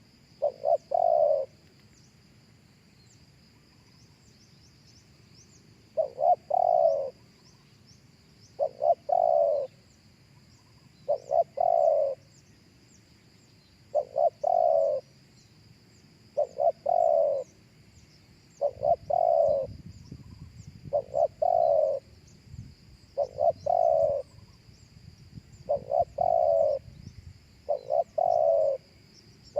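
Spotted dove cooing: short phrases of a few notes, one about every two to three seconds, after a pause of about four seconds near the start.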